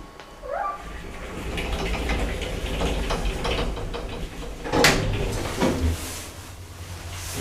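Lift doors operating: sliding and clattering, with a short rising tone near the start and a sharp knock about five seconds in, over a low rumble.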